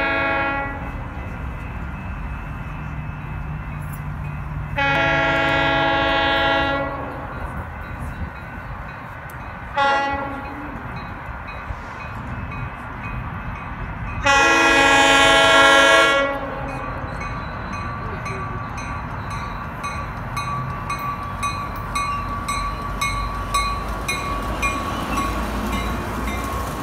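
Coaster commuter train sounding its horn in the long-long-short-long grade-crossing pattern: a long blast ending just as the sound begins, a second long blast, a short one and a final long one. The train then rolls into the station with its wheels clicking regularly over the rail joints.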